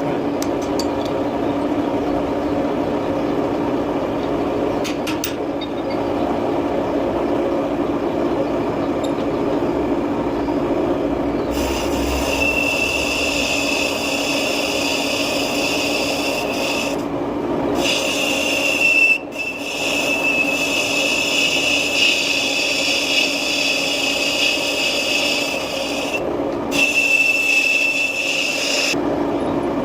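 Metal lathe running while turning a cast iron part, a steady machine hum. About a third of the way in, a high steady whine from the cut joins in and breaks off briefly several times.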